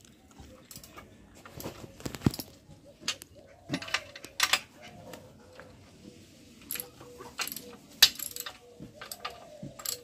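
Irregular metallic clinks and clanks of a hand tool and steel parts on a chain-link fencing machine's die mount as its fitting is fully tightened, the sharpest clank about eight seconds in.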